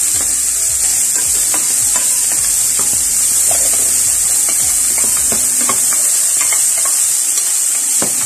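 Diced bacon sizzling as it fries in a hot pan, stirred with a wooden spatula that clicks and scrapes against the pan every so often.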